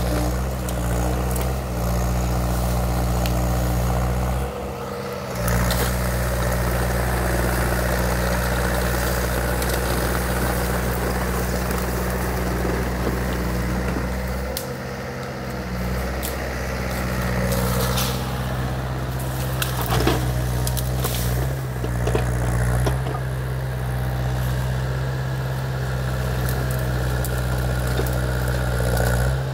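Case mini excavator's diesel engine running steadily while it works. Its sound drops briefly twice, about five and fifteen seconds in. A few sharp knocks and cracks come in the later part.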